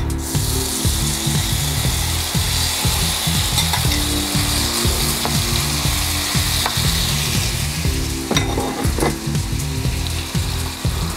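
Marinated ribeye steak strips sizzling in a hot oiled wok on high heat. The sizzle starts suddenly as the meat hits the oil and keeps going steadily, with a metal spoon stirring and now and then clicking against the pan.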